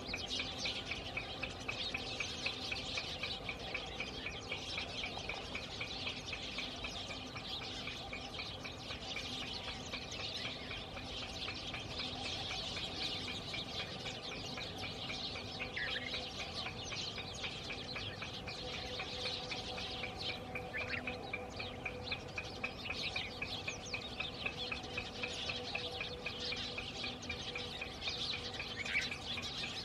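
Many birds chirping and calling together in a dense, continuous chorus, with a fast, evenly repeated chirp underneath and a few short down-slurred calls. A faint steady low hum lies beneath.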